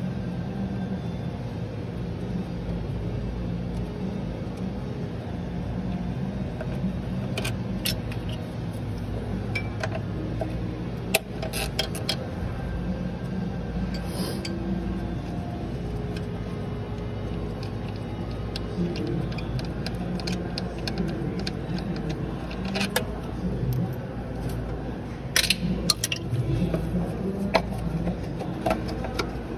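Metallic clinks and clicks of tools and engine parts being handled at the front of a Mazda forklift engine, by the crankshaft pulley and timing belt sprockets, during head gasket disassembly. The clinks are scattered, a few about a third of the way in and more near the end, over a steady low hum.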